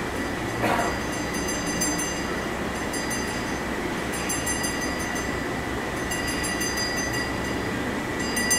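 Temple bells ringing continuously during aarti: a steady metallic clangor with one high bell tone sustained over rapid, clattering strikes.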